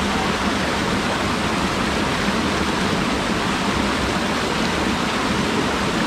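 Mountain stream cascading between boulders in a small falls: a steady, even rush of water.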